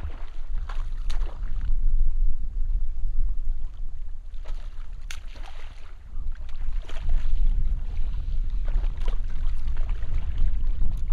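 Wind buffeting the microphone: an uneven, gusty low rumble, with a few faint knocks.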